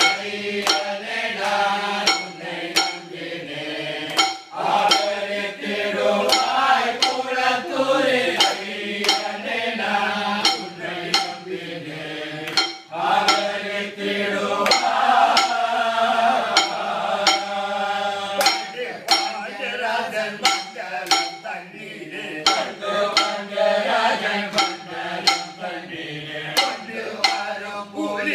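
A group of men singing a Tamil devotional bhajan together, with a sharp beat struck about every two-thirds of a second keeping time.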